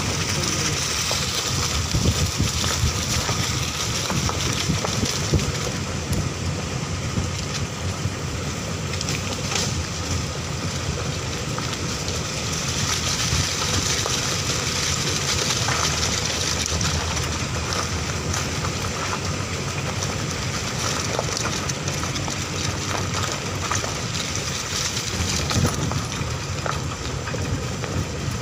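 Vehicle driving along a dirt forest track, its engine running under steady wind noise on the microphone, with a few knocks from the bumpy ground.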